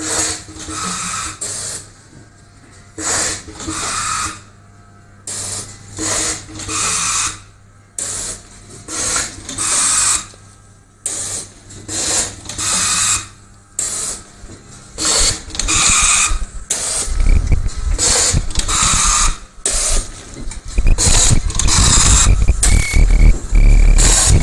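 C60 pyramid inner-and-outer bag packing machine running through its cycle: a steady hum with short, sharp bursts of mechanical noise about once a second. A heavy low rumble joins from about two-thirds of the way in.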